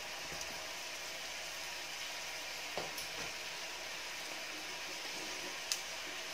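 Mustard seeds, urad dal, cumin and fenugreek frying in hot oil in a pot, a steady sizzle with a faint click or two.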